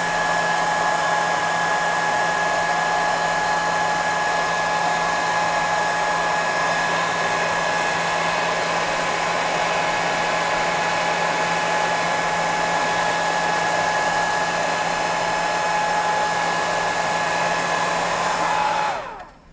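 Heat gun blowing steadily: a rush of air with a steady fan-motor whine on top. Near the end it is switched off, and the whine falls in pitch as it spins down.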